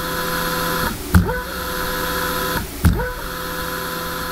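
Brushless servo motor driven by a GaN inverter set to a 1 µs dead time, giving off an audible whine. The whine rises quickly in pitch, holds steady for more than a second, then breaks off with a short knock, repeating about every one and a half seconds. The whine is the audible noise from the long 1 µs dead time in the drive's switching.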